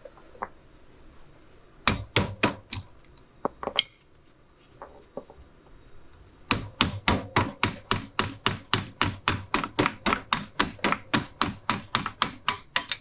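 Hammer blows: a few strikes about two seconds in, then a steady run of rapid blows, about four or five a second, from about six and a half seconds on.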